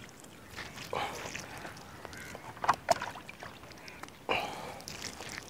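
Water poured from a plastic mug splashing and trickling into the gutted belly of a large seer fish as it is rinsed, faint and uneven, with a few short louder splashes.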